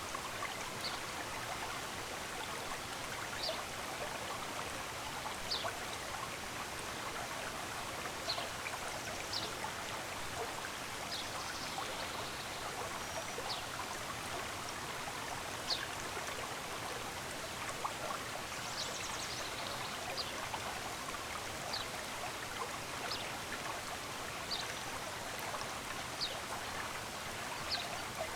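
Running stream water, a steady rush, with a small bird's short high chirps coming every second or two over it.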